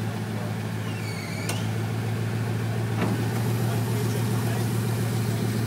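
Bugatti Veyron Super Sport's 8.0-litre quad-turbocharged W16 idling with a steady low drone, with a couple of brief clicks midway.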